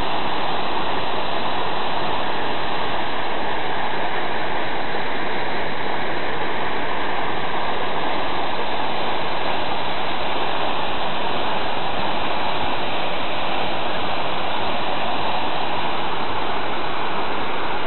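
Waterfall plunging down a rock cliff: a loud, steady rush of falling water.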